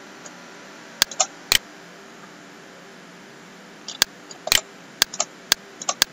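Computer mouse clicking: three clicks about a second in, then a quicker run of about eight clicks from about four seconds in, over a low steady hiss.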